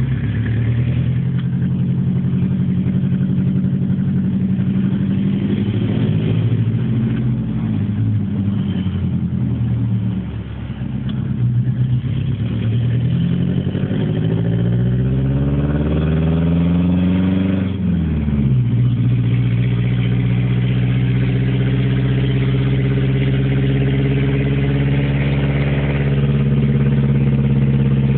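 Chevrolet Camaro SS V8 engine and exhaust heard from inside the cabin while driving. The note holds steady, then climbs for several seconds as the car accelerates through a gear, drops sharply at the upshift just past the middle, and settles into a steady cruise.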